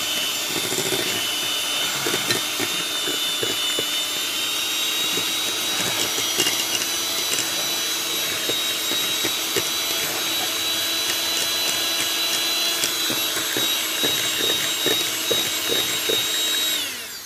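Electric hand mixer running with a steady motor whine, its beaters working a thick cream cheese and mango batter in a glass bowl, with scattered light clicks. The motor winds down and stops at the very end.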